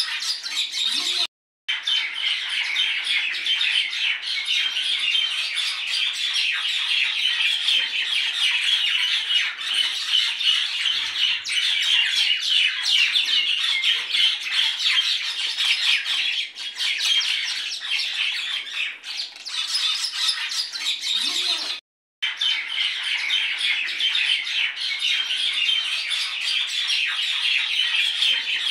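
A flock of birds chattering and squawking continuously in a dense, high-pitched din, broken twice by a brief moment of total silence.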